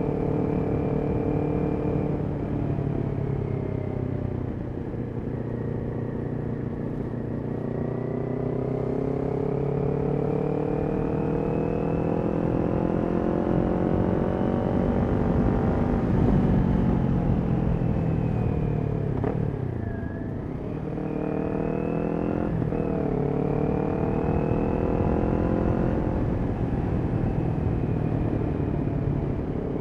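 Kawasaki Ninja 400's parallel-twin engine through a Yoshimura exhaust, riding on the road. The engine pitch dips, then climbs steadily for about ten seconds under acceleration, falls away sharply as the throttle closes about twenty seconds in, rises again quickly, and settles into a steady cruise.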